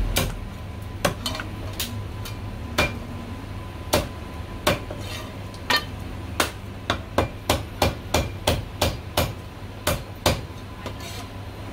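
Chinese cleaver chopping marinated goose into pieces on a chopping block, in sharp single chops. The chops come about one a second at first, then in a quick, even run of about three a second near the end.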